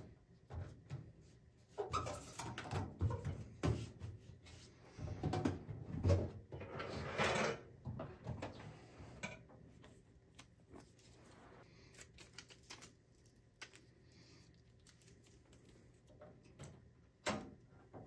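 Handling noises from strips of tape being peeled and pressed onto a microwave's sheet-metal trim flashing: irregular rustling and scratching with light taps and knocks on the metal casing. The noise is busiest in the first half, with one longer scratchy stretch, and turns to a few scattered taps and a sharper knock near the end.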